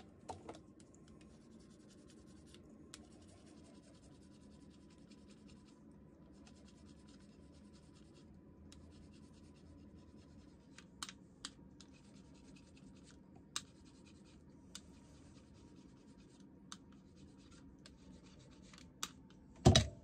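Faint scratching and rustling of hands working carbon-fibre cloth onto a shift knob, with scattered sharp clicks in the second half and one loud knock near the end.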